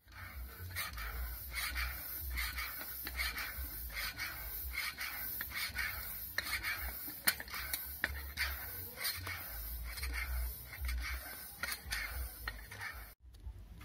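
Hand floor pump inflating a car tyre: a rhythmic hiss of air with each stroke, about two strokes a second. It cuts off suddenly near the end.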